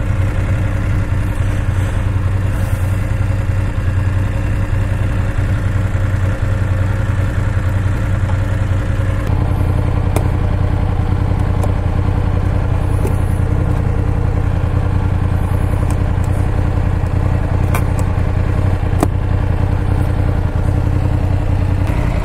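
BMW GS Adventure motorcycle engine idling steadily at an even pitch, with a few light clicks now and then.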